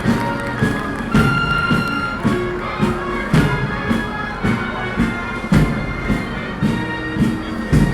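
Military marching band playing a march outdoors: a steady drum beat of a little under two strokes a second under held notes from the wind instruments.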